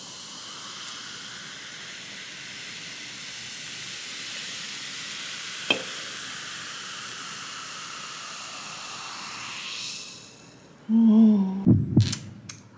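Freshly poured Coca-Cola Starlight Zero Sugar fizzing in a mug: a steady hiss of bursting bubbles, with one sharp click about halfway through. The fizz fades out after about ten seconds, and a short hum and a few knocks follow near the end.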